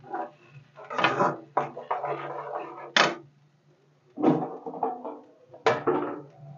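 Metal spatula scraping and knocking against an aluminium kadai while stirring thick tomato-onion masala, giving several sharp clatters. A steady low hum runs underneath.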